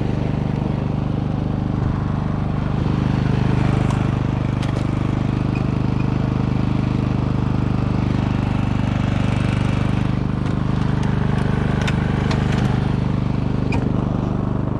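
Small engine aboard a bowfishing boat running at a steady drone, with a few light knocks about four seconds in and again near twelve seconds.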